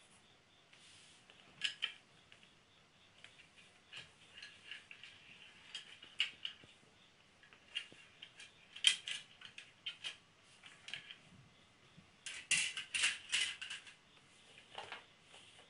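Irregular light clicks and rattles of small hard objects being handled, loudest in a cluster about twelve to fourteen seconds in.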